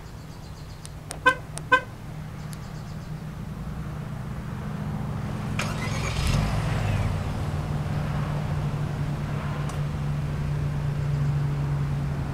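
Two short horn chirps from a 2018 Nissan Kicks as the key fob is pressed, then the car's 1.6-litre four-cylinder engine starts by remote start and runs at a steady idle.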